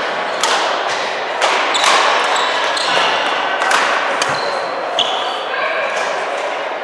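Badminton play in a large echoing sports hall: rackets striking the shuttlecock in a string of sharp cracks, with shoes squeaking on the wooden court floor.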